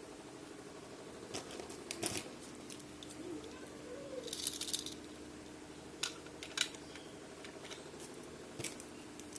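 Small plastic toy pieces clicking and tapping as they are handled, in scattered single knocks, with a brief hissing rustle near the middle over a faint steady hum.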